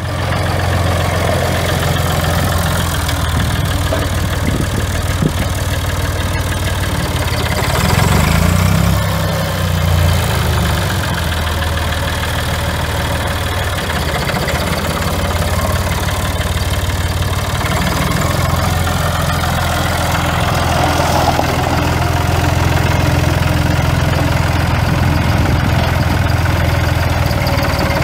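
A 1982 Massey-Ferguson 230 tractor's Perkins AD3.152 three-cylinder diesel engine idling steadily, with a brief rise in engine speed about eight seconds in.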